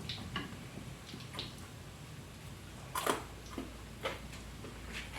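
Someone chewing crispy fried food, with a few irregular crunches; the loudest comes about three seconds in.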